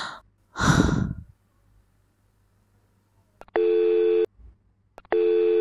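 A short rush of noise, then two beeps of a phone's busy tone, each about three-quarters of a second long and a second and a half apart: the other end has hung up.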